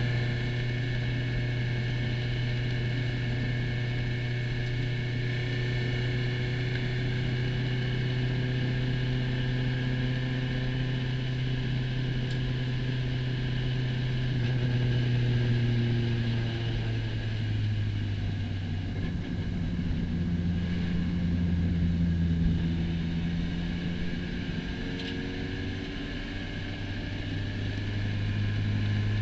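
SRF3 (Spec Racer Ford Gen3) race car's four-cylinder engine running at low, fairly steady revs. Its pitch eases down about halfway through and climbs again near the end.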